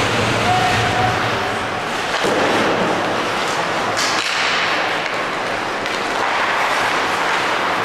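Steady din of an ice hockey game in an arena, with one sharp knock about four seconds in.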